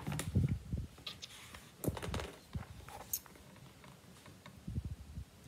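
Hardcover picture book being handled and its pages turned: scattered rustles, taps and soft knocks.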